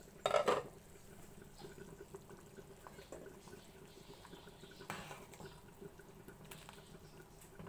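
Pot of batchoy broth bubbling softly while a ladle stirs the soup and noodles, with a brief louder knock about half a second in.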